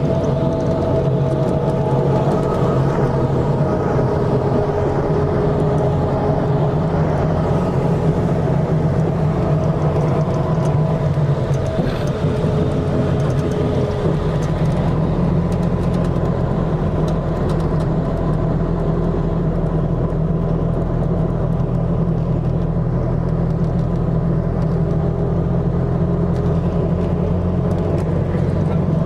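Steady drone of a moving road vehicle heard from inside: engine hum and road noise, with a shift in the low hum about halfway through.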